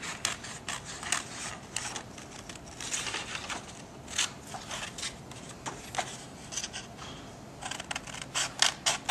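Small scissors snipping through a printed paper sheet, a run of short, irregular snips with paper rustling as the sheet is handled.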